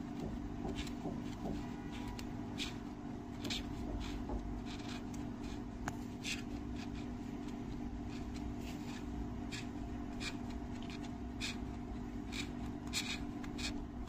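Female Japanese rhinoceros beetle stridulating: a string of short, irregularly spaced scrapes as she rubs the tip of her abdomen against her wing cases, over a steady low hum.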